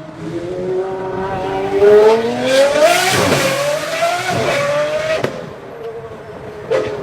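Lamborghini engine and exhaust revving hard: the pitch climbs for about three seconds, falls, climbs again and drops to a steady lower note, with a short sharp rev blip near the end.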